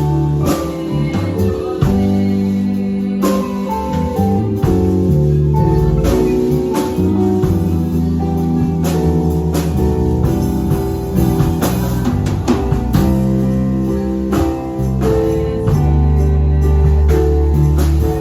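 Band music led by guitar, with sustained low notes and a steady beat, played through a sound check.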